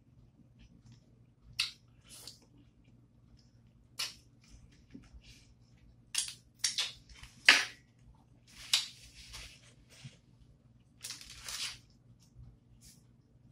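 Close eating sounds: wet mouth smacks and chewing on barbecue-sauced ribs, with fingers being licked, coming as irregular short sharp smacks with pauses between.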